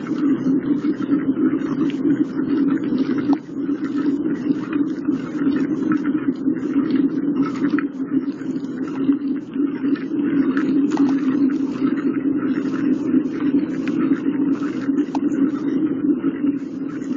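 Steady rumble of wind and road noise from riding a bicycle along a paved path, with frequent small ticks and rattles throughout.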